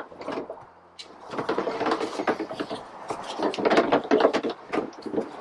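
Irregular knocking and rattling around a plastic five-gallon kerosene jug and the hose of its battery-powered transfer pump as they are handled. It starts about a second in with a quick series of small knocks that grows busier, then thins out near the end.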